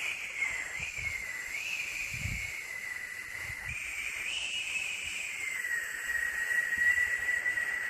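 Steady white-noise hiss for lulling a baby to sleep, with a high whistling tone that wavers slowly up and down in pitch. A few soft low thumps sound underneath.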